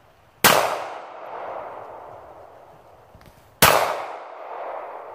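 Two pistol shots about three seconds apart. Each is a sharp crack followed by a long decaying echo off the surrounding woods.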